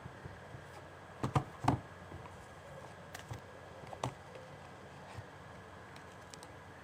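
Handling noise from album packaging: a quick cluster of knocks about a second and a half in, a single knock near four seconds, and a few lighter taps and clicks over a faint steady hum.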